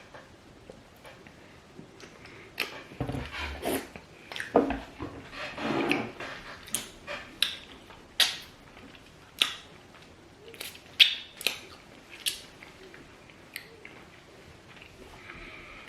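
Eating banku with okro soup by hand: a run of sharp wet mouth smacks and chewing sounds, thickest through the middle, then dying away.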